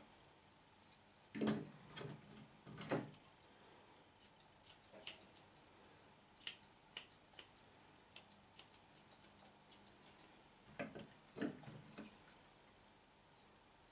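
Grooming shears snipping through a poodle's coat: a quick run of short, sharp clicks, about three a second, in the middle, with a couple of duller knocks near the start and near the end.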